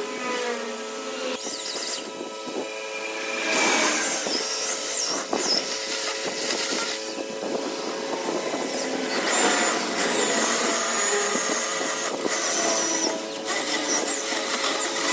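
Power tool working a block of lim hardwood, running continuously with a high whine that shifts in pitch as it bites into the wood.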